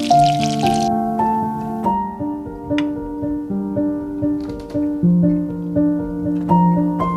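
Background piano music with slow, sustained notes. For about the first second, oil sizzling under frying food is heard too, then it cuts off suddenly.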